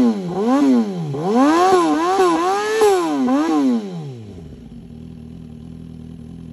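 Suzuki GSX-R1000R inline-four revved through a copy GP-style aftermarket exhaust: a series of quick throttle blips, each note rising and falling, about two a second. About four seconds in the revs drop back to a steady idle.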